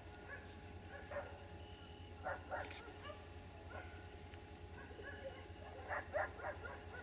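Faint dog barking: scattered short barks, with a quick cluster of several barks near the end, over a low steady rumble.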